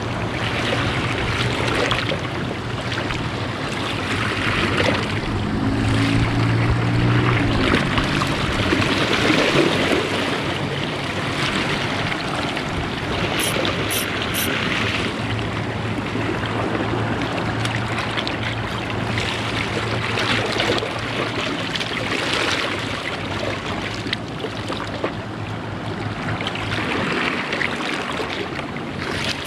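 Small sea waves washing and splashing against shoreline rocks, a continuous rushing and sloshing that swells and eases. A low steady motor hum comes in twice, once briefly and once for several seconds past the middle.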